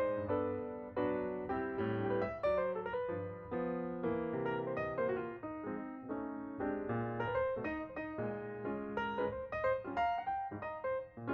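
Background piano music, many notes played in a lively sequence with chords underneath.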